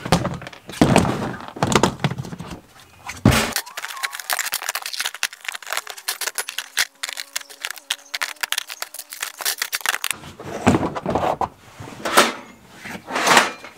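Camping gear being handled in an SUV's carpeted cargo area: a plastic storage bin and a camp stove case are lifted, shifted and set down. It makes many short knocks, clatters and scrapes. There is a stretch of lighter, quick clicking in the middle, and heavier knocks return near the end.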